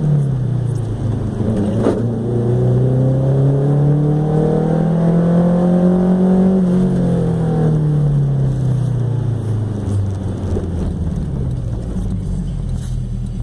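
Chevrolet Chevette 1.6 S four-cylinder engine through a 4x1 header and straight pipe, pulling under acceleration: its loud note climbs slowly for about six seconds, then falls away steadily as the car slows.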